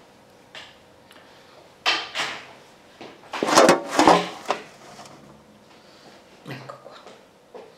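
Handling noise: a few knocks and scrapes as the camera is picked up and moved and the chair is shifted, with the loudest scrape about three and a half to four seconds in.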